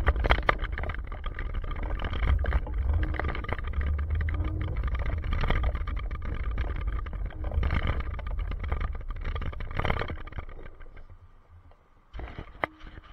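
Wind buffeting and handling rumble on a moving action camera's microphone, with many small knocks. It fades out about eleven seconds in as the camera comes to rest, then a few light knocks follow.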